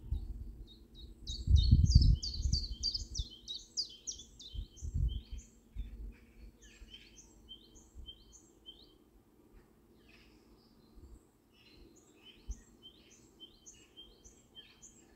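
A small bird chirping in rapid runs of short, high calls, busiest in the first half and again near the end. Low thuds and rumble come in the first few seconds, loudest about two seconds in, over a faint steady hum.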